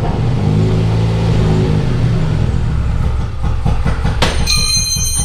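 2015 Hyundai Veloster's 1.6-litre four-cylinder engine running just after a restart, freshly fitted braided fuel lines possibly still holding air; it runs evenly at first, then turns uneven and stumbling about three and a half seconds in. About four seconds in comes a sharp metallic clank with high ringing, a dropped wrench.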